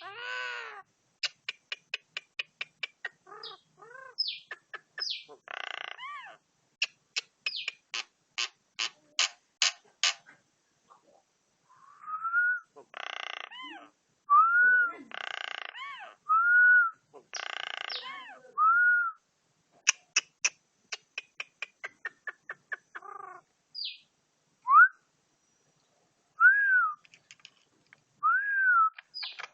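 A pet talking bird making a varied run of calls: quick series of clicks, short harsh squawks, and clear whistles that rise and fall, repeated in bouts.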